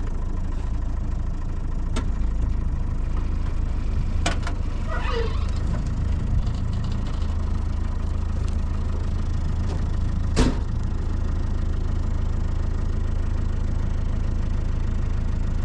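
A vehicle engine running steadily with a low hum. There are a few sharp clicks, the loudest about ten seconds in.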